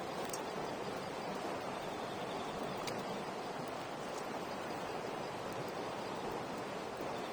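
Wood campfire burning, with a few sharp crackles over a steady rushing noise.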